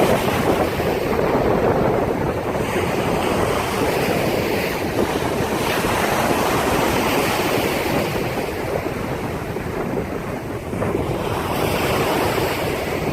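Big sea waves breaking and washing in, the roar swelling and easing, with strong wind buffeting the microphone.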